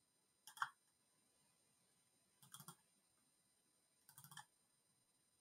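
Faint computer mouse clicks in three short clusters about two seconds apart, against near silence.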